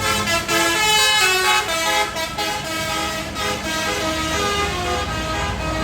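Bus's Basuri telolet musical horn playing a quick tune of short notes that step up and down in pitch.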